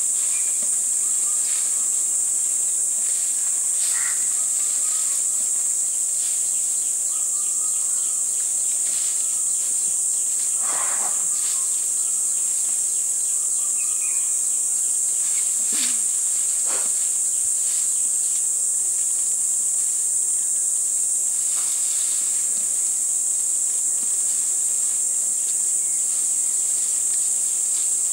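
Steady high-pitched drone of an insect chorus, unbroken throughout, with a few short faint bird calls and brief rustles over it.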